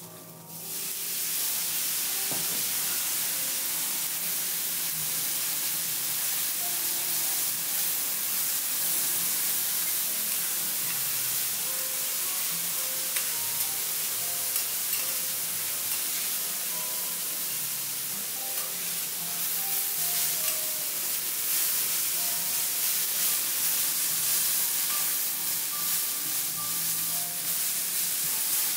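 Bean sprouts and greens sizzling steadily on a hot teppanyaki griddle, stirred and turned with metal spatulas that scrape and tap the steel now and then. The sizzle starts about half a second in.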